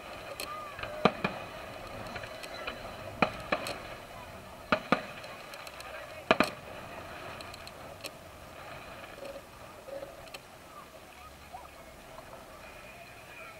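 Firework display: sharp bangs of bursting shells, coming in close pairs several times in the first half, then thinning out, over a murmur of voices.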